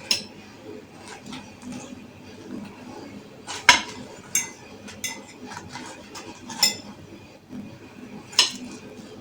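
Cutlery clinking and scraping against dishes as food is spooned out, in scattered short knocks, the loudest about three and a half and eight seconds in.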